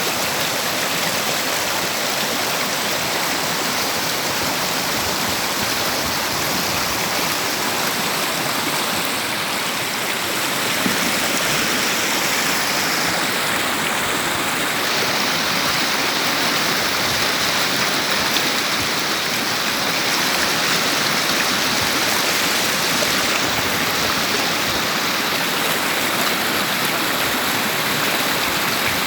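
River water rushing and babbling over stones, a steady, even flow.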